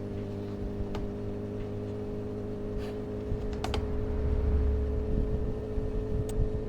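Suzuki GSX-R750 inline-four motorcycle engine idling steadily, with a few sharp clicks and a low rumble that swells briefly in the middle.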